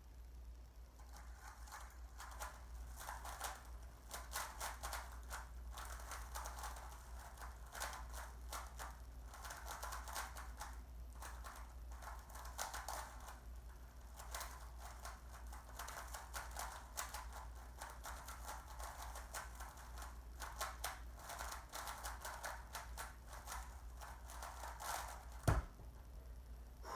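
A Rubik's Cube being turned rapidly during a speed solve: a dense, steady stream of plastic clicking and clacking from the turning layers for about 24 seconds, ending with one sharp knock near the end.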